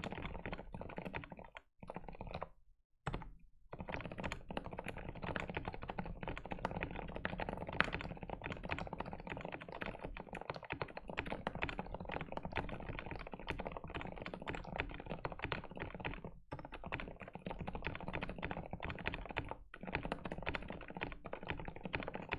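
Continuous typing on a mechanical keyboard fitted with silent linear Frankenswitches: Kailh Cream housings with silent Gateron red stems, lubed, on 62 g springs. A dense run of keystrokes with a few short pauses, two of them a couple of seconds in.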